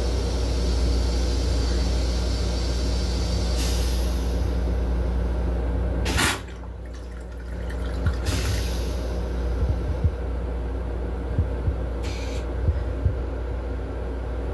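Metro-North M7 railcar toilet flushing: a rush of rinse water about four seconds in, a sudden loud whoosh about six seconds in as the bowl empties, then water hissing and dripping as the bowl rinses. A steady low hum runs underneath until the whoosh.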